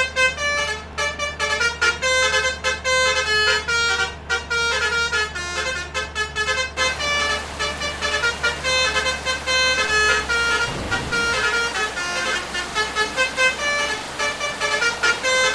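Basuri 'telolet' musical air horn on a truck or bus playing a quick melody of changing notes. The notes come with short breaks at first and run on without a pause from about seven seconds in. A steady low hum runs underneath.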